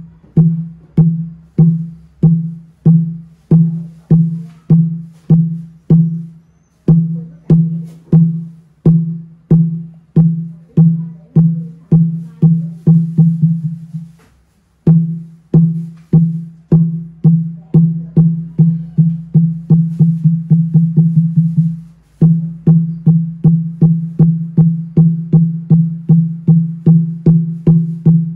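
Large 8-tay jackfruit-wood Buddhist chanting mõ (wooden fish) struck with a wooden mallet. Each stroke gives a deep, pitched knock. The knocks come about two a second, twice speed up into a fast roll that breaks off briefly, and then settle back into a steady beat.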